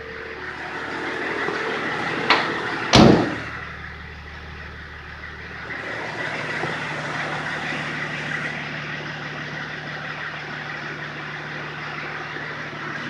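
Range Rover P38 running with a steady mechanical hum, broken by two sharp knocks about two and three seconds in, the second a loud thump. About six seconds in, the hum steadies at a slightly higher pitch.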